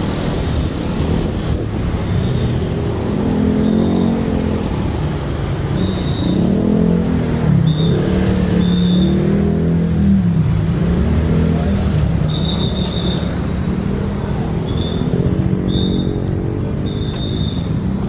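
Busy street traffic heard from a moving bicycle: motorbike and minibus engines running close by, their pitch rising and falling as they accelerate and ease off, over a steady rumble of wind and road noise.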